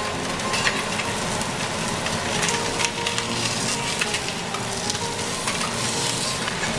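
Yellowtail snapper fillets sizzling and crackling steadily in a hot nonstick frying pan, seared golden brown.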